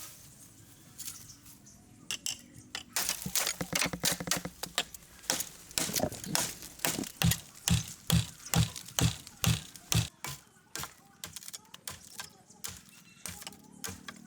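Hard objects striking one another in a long series of sharp knocks and clinks, with a steady run of heavier strokes at about three a second near the middle, then tapering off.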